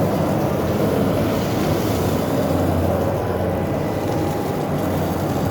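Concrete mixer truck running steadily while its drum is washed out, a low even engine hum under a constant rushing noise.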